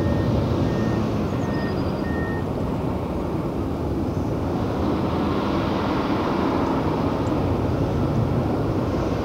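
Heavy diesel earthmoving machinery running steadily with a deep rumble. A reversing alarm beeps about every half second and stops a little over two seconds in.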